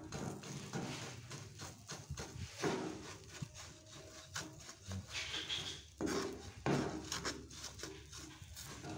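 Wooden spatula stirring and scraping a panful of salt mixed with chillies, dried shrimp and shrimp paste in a frying pan, in irregular strokes and knocks, as the mix is dry-roasted until it is dry.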